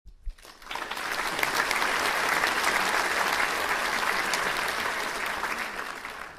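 An audience applauding. The clapping swells in over the first second, holds steady, then tapers off near the end.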